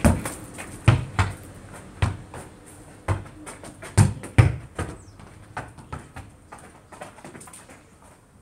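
A football kicked against a concrete block wall: a series of sharp thuds from the kick, the ball striking the wall and bouncing back on gravel, with softer knocks and footsteps after about five seconds as the ball is brought under control.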